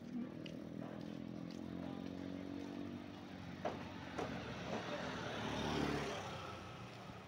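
Motorcycle engine running steadily while riding along a road. An oncoming motorbike passes, growing louder to a peak about six seconds in, with a couple of sharp knocks shortly before.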